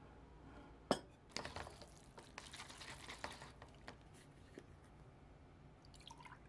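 A sharp click, then a couple of seconds of crackly, wet stirring as chopsticks work carbo buldak noodles in a paper cup. Near the end, drinkable yogurt starts pouring from a bottle into a glass.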